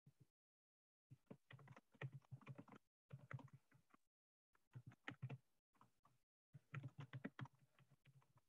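Faint typing on a computer keyboard: several short runs of quick keystrokes with brief gaps between them.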